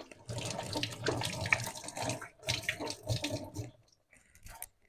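Spinach pakoras deep-frying in hot oil in a kadhai on full flame: a dense, crackling sizzle. It dips briefly about two seconds in and fades out near the end.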